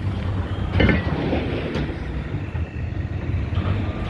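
Vehicle engine running with a steady low rumble, and a brief clatter about a second in.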